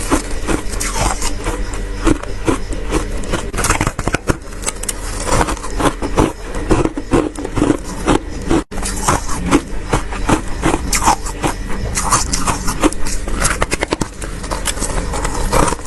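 Frost being scraped and chipped off the inside of a freezer, in quick, irregular scratching strokes and knocks over a steady low hum.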